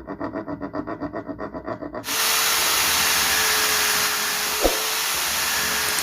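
Fast rhythmic hand strokes on wood, about eight a second, then an abrupt change to a power tool running with a steady hiss and one faint steady tone, and a single click a little past the middle.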